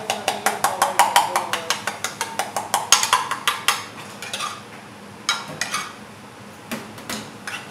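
Metal ladle beating against the inside of an aluminium bowl: fast, even clinking at about seven strikes a second. It stops about four seconds in, and only a few scattered knocks follow.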